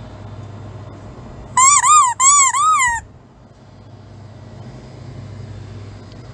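A green rubber squeeze-toy bottle squeaked by hand as a service bell: two quick bursts of high squeaks, each note bending up and down, about a second and a half in all, over a steady low background hum.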